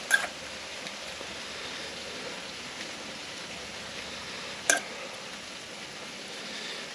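Steady sizzling hiss from the hot griddle, broken by two sharp taps, one at the very start and one nearly five seconds in.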